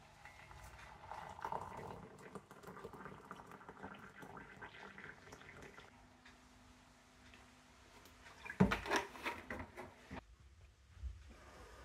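Hot water poured from a kettle into a ceramic mug, then a quieter pour of milk from a plastic bottle. Later comes a loud knock followed by about a second of clattering.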